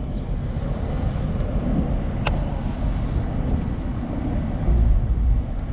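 Steady rumble of a moving vehicle, road and engine noise with wind rush, heaviest in the low end; a single brief click about two seconds in.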